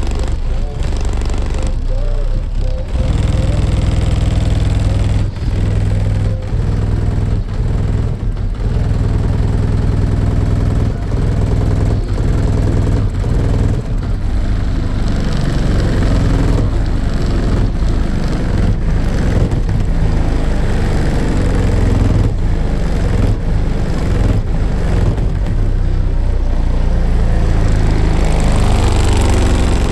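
Loud bass-heavy music played through two Team EM Audio 18-inch subwoofers in a hatchback, in a ported box tuned to 29 Hz. The deep bass dominates with a steady beat.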